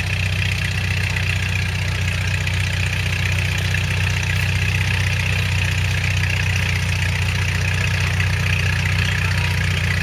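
Vintage Caterpillar crawler tractor's engine running steadily under load as it pulls a trailed plough, a continuous low mechanical drone.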